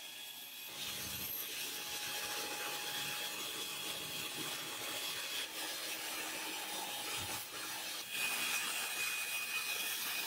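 Belt grinder grinding a steel karambit blade against its contact wheel: a steady abrasive rasp with a faint whine that drops in pitch about eight seconds in.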